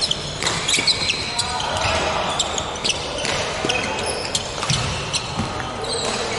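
Badminton rally on a wooden court floor: sneakers squeaking in short high chirps as the players move, and sharp clicks of rackets hitting the shuttlecock. Voices can be heard in the hall.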